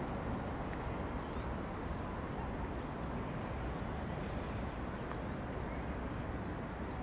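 Steady outdoor background rumble, strongest in the low range and even throughout, with a few faint, brief high chirps.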